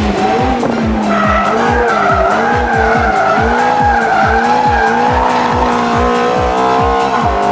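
Ferrari F430 drifting: the tyres squeal with a pitch that wavers up and down, over the car's V8 engine. A steady thumping music beat runs underneath.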